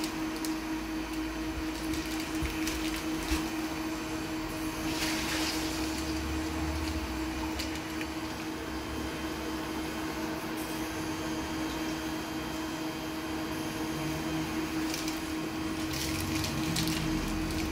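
Steady humming drone of an appliance motor or fan, with a few light clicks and a short hiss about five seconds in.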